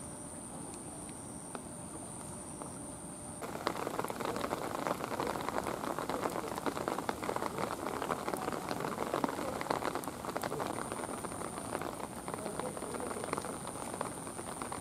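Rain pattering steadily as a dense crackle of drops, starting abruptly about three and a half seconds in. Before that there is only a fainter hiss with a thin, steady high whine.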